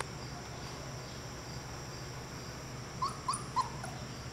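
A young puppy whimpering: three short, high squeaks about three seconds in, over a faint steady hum.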